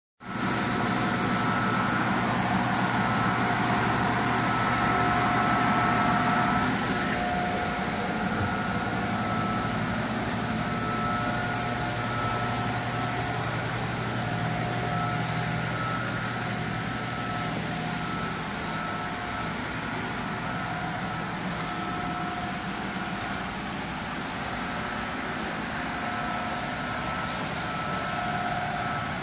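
Steady mechanical hum and hiss, with two faint high tones that come and go every couple of seconds.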